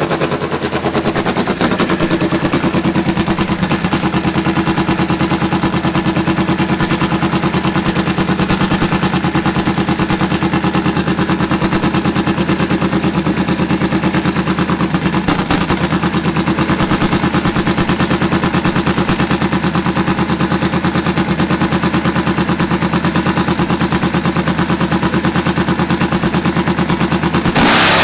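Nitromethane-fuelled Top Fuel Harley V-twin drag-bike engine idling loud and steady as a rapid, even string of sharp firing pulses, like machine-gun fire, between its burnout and its launch.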